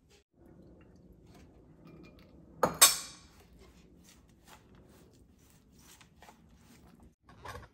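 A steel spoon gives one sharp metallic clink about three seconds in. Then hands work a crumbly ground-peanut stuffing in a steel plate, making faint, irregular scraping rustles.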